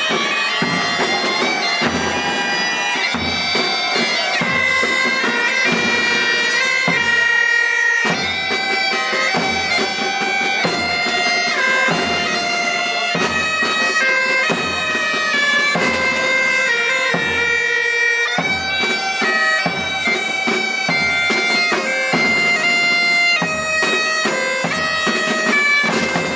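Pipe band music: bagpipes playing a melody with a steady bass drum beat.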